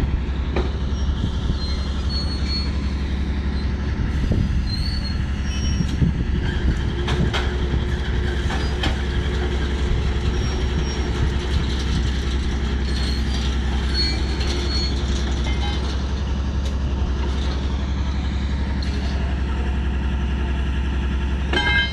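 Rail vehicle running on track: a steady low rumble with metallic wheel squeals and sharp clicks and knocks.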